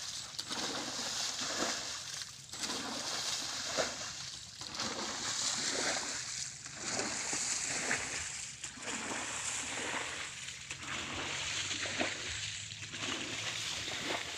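Shallow muddy paddy-field water splashing and sloshing in a steady rhythm, with a surge roughly once a second.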